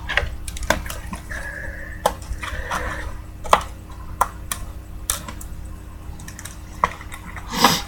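Trading cards being handled: scattered light clicks and taps, about seven in all, with a short, louder rustle near the end.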